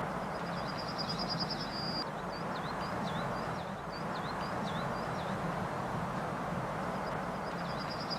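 A songbird singing outdoors: a rapid trill, then a run of short down-slurred whistles, with the trill coming again near the end. Under it is a steady rushing ambient noise.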